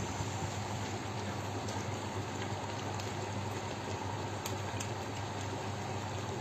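Steady kitchen background of a low hum under an even hiss, with a couple of faint clicks about four and a half seconds in.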